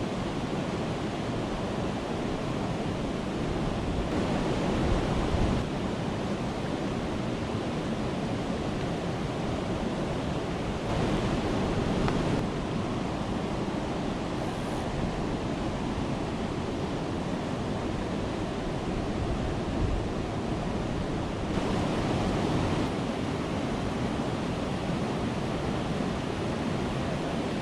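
Water pouring over a river weir and churning in the weir pool below: a steady rushing noise. It swells louder three times, with gusts of wind on the microphone.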